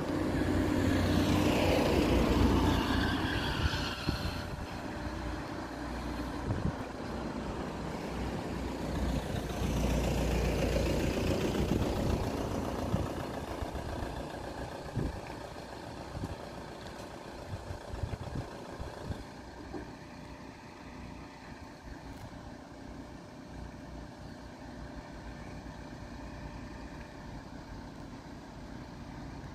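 Cars driving past close by, loudest about a second in and again about ten seconds in, then a quieter steady rumble of car engines idling in a queue.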